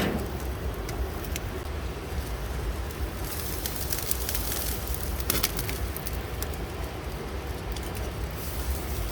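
Boti meat pieces sizzling and crackling on a barbecue grill, with sharp crackles throughout and a hiss that swells for a couple of seconds in the middle, over a steady low rumble.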